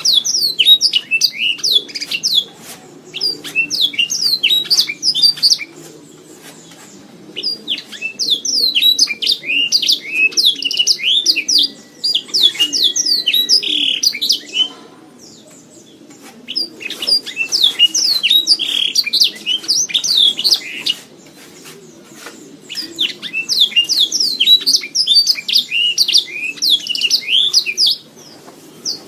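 Domestic canary singing: four long bouts of rapid chirps and trills, each broken off by a short pause before the next.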